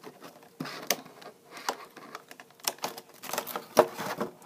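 Clear plastic blister insert of a Pokémon card collection box clicking and crackling as it is gripped and pried at: a run of irregular sharp clicks, the loudest near the end.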